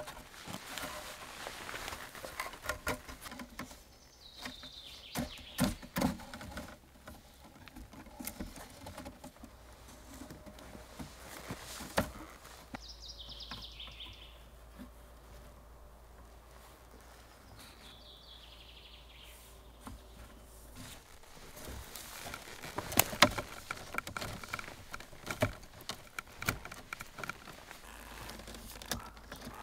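Thin branches rustling, creaking and clicking as they are woven between upright stakes into a wattle wall, with scattered sharp knocks and cracks that are loudest about two-thirds of the way through. A bird sings a few short falling phrases in the quieter middle stretch.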